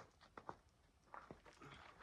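Near silence with a few faint, short clicks and knocks and a light rustle.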